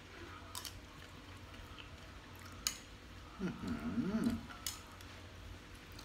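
Metal spoon clinking against a bowl, a few sharp clinks, while stirring sticky minced raw beef koi. About three and a half seconds in there is a brief wavering pitched sound.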